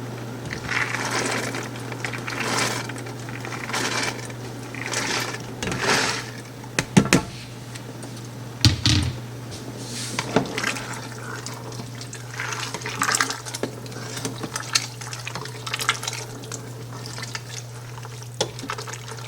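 Soaked dried beans being poured into a pot of baked-bean sauce and stirred in: repeated wet sloshing and swishing, with a few louder knocks against the pot about seven and nine seconds in. A steady low hum runs underneath.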